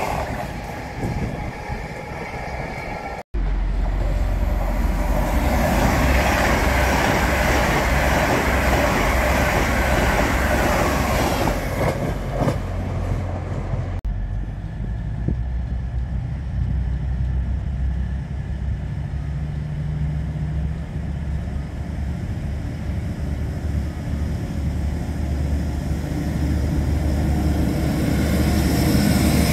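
Passenger trains at a station platform. An LNER Azuma passes close at the start with a pitched running whine. After a break, a steady, noisy rumble carries on while a Grand Central train approaches, and it grows louder near the end as the train runs alongside the platform.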